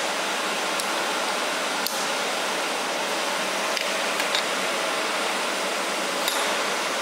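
Steady hiss of rushing air, like a fan running, with a few faint light clicks.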